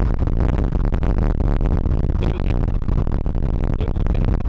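Strong wind buffeting the microphone: a loud, steady low rumble with irregular gusty surges.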